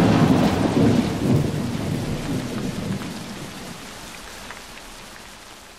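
Steady rain with a low rumble of thunder in the first few seconds, fading out steadily.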